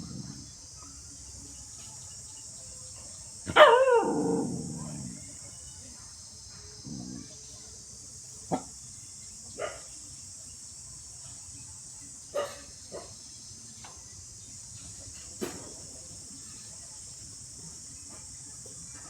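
Dog barking: one loud, drawn-out bark falling in pitch about four seconds in, then a handful of single short, sharp barks spaced a second or more apart.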